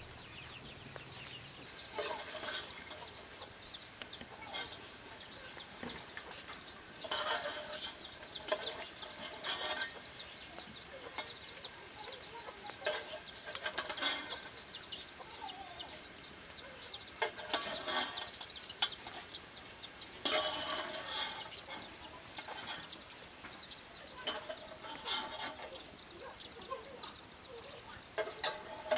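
Chickens clucking and calling, with a busy chatter of short high chirps throughout.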